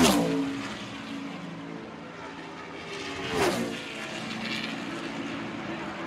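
NASCAR stock cars' V8 engines racing past at speed, the pitch dropping sharply as each car goes by: a loud pass-by at the start and another about three and a half seconds in, with the engines of the field droning steadily between.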